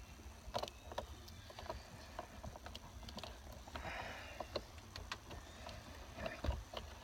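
Scattered light clicks and knocks of plastic parts being handled and fitted at the steering wheel while the cruise control switch is refitted, with a brief rustle about four seconds in and a firmer knock near the end, over a low rumble.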